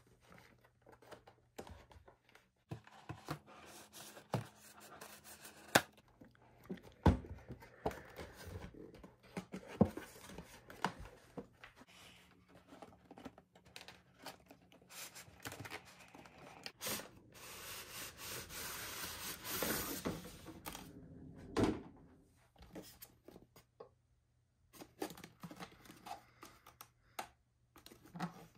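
A model car's box and packaging being handled and opened: rustling and tearing with many small clicks, a few sharper knocks, and a longer stretch of tearing or sliding noise about two-thirds of the way through.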